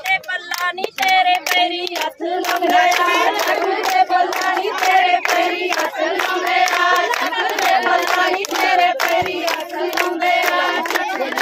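Women and girls singing a Punjabi boli together in chorus, with the rhythmic hand clapping of giddha keeping time throughout.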